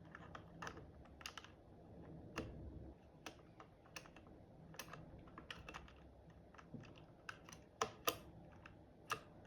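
Mechanical keyboard space bar and keycaps being pressed down onto their switches, giving faint, irregular clicks and taps, a few louder near the end.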